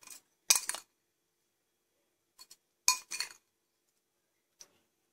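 A few short metallic clinks of a steel spoon against a cooking pan, the loudest about half a second and three seconds in, with silence between them.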